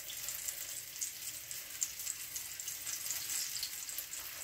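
Floured pieces of pollock frying in hot oil in a skillet: a steady sizzle with scattered small pops.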